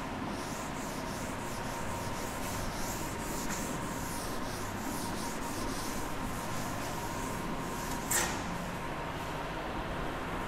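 Handwriting in quick, scratchy strokes across a writing surface, with one sharper tap about eight seconds in.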